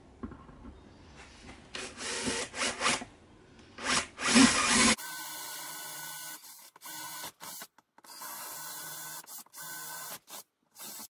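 Cordless drill boring holes into a wooden bench top. It starts with a few short, loud bursts, then runs steadily with a motor whine from about five seconds in, stopping and starting several times.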